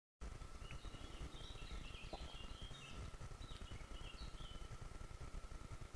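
Small songbirds chirping in quick short phrases over a low, fluttering wind rumble on the microphone, with a thin steady high tone underneath. The sound cuts in abruptly after a brief moment of dead silence at the start.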